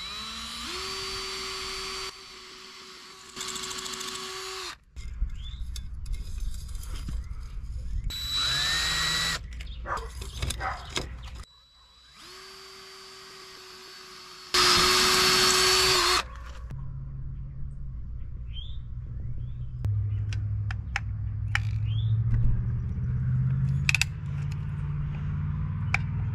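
DeWalt cordless drill running at a steady pitch while drilling pilot holes into brick, in three separate runs; the last run is the loudest. After that comes a lower hum with scattered clicks and taps.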